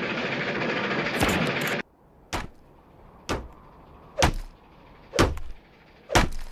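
Cartoon sound effects: a loud, dense crashing clatter that cuts off suddenly about two seconds in, followed by five sharp knocks about a second apart, like blows on wood.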